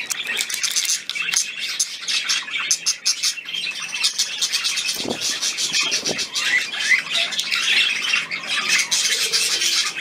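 Many budgerigars chattering and chirping together, a dense, continuous twittering full of quick clicks.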